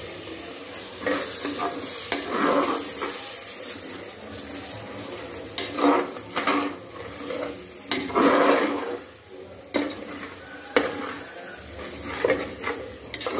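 A metal spatula stirring and scraping mutton masala in an aluminium pressure cooker, in repeated strokes, with a couple of sharp knocks against the pot about ten seconds in.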